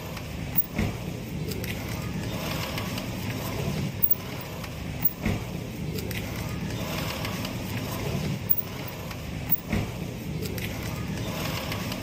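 Honda ADV150 rear brake pads rubbing and squeaking against the disc as the rear wheel turns, a repeating scrape with an occasional sharper click. The noise comes from badly rusted pads, likely from salt water, that are coming away from their backing plates.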